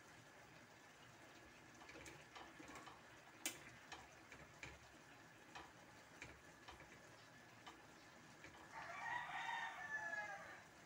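Metal spoon scraping and tapping a stainless steel frying pan while stirring a simmering coconut-milk dish, in faint scattered clicks with one sharper tap. Near the end comes a louder drawn-out call of about two seconds.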